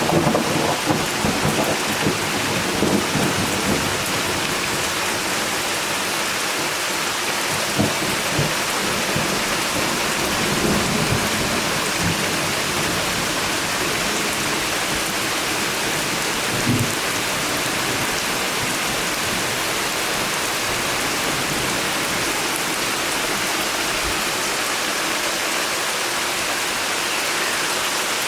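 Steady heavy summer rain pouring down. Low rumbles of thunder come and go in the first half, with a brief low thump about two-thirds of the way through.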